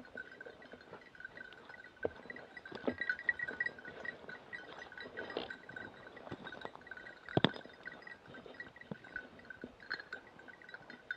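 Footsteps and rustling through dry scrub with a few sharp knocks, the loudest about seven seconds in, over a faint steady high pulsing tone.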